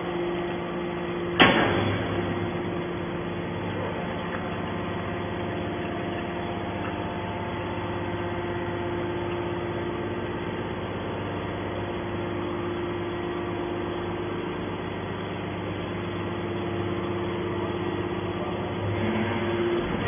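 Hydraulic scrap metal baler running with a steady hum from its pump and motor while the ram pushes a compressed bale of scrap out of the press chamber. A single sharp bang comes about a second and a half in.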